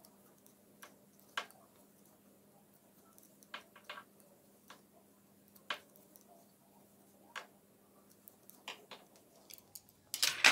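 Metal knitting needles clicking against each other now and then while stitches are bound off, with a louder burst of handling noise near the end as the knitted hat is moved.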